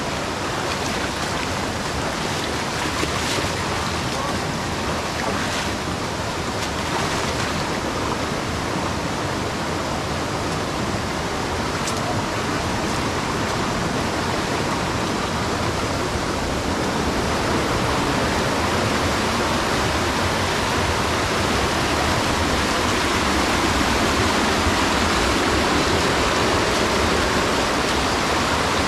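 Steady rush of river water flowing, a little louder in the second half.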